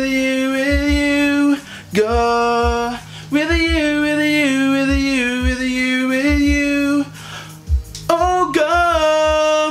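A man singing long, held and wavering wordless notes over a backing track with a steady low beat; the voice breaks off briefly about two seconds in and again near seven seconds.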